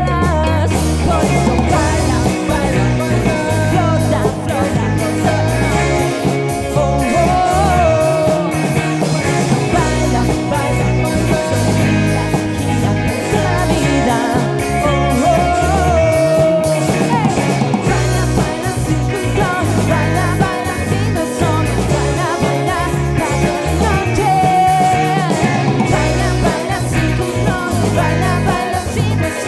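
A rock band playing live: a male lead vocal sung over electric guitars, bass guitar, drums and keyboards, with the bassist joining in on a backing vocal near the end.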